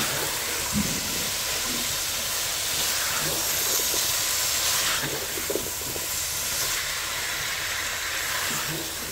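Tandoori-marinated chicken with chopped onion, tomato and cabbage sizzling in a pan: a steady frying hiss, with a few soft scrapes of a spatula as it is stirred.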